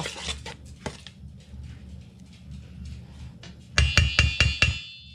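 A spoon rapped against the rim of a mixing bowl in a quick run of about seven sharp strikes near the end, knocking off the sauce, with a high ring lingering after them. A few faint clicks come first.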